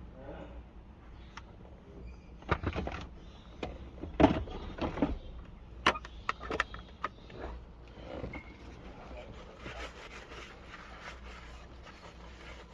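Irregular sharp knocks and clicks, a dozen or so, bunched in the first half, over a low steady hum.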